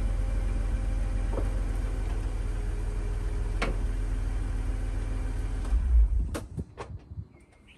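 BMW Z4 3.0 straight-six engine running steadily, then shut off about six seconds in with a brief shudder. A few sharp clicks follow.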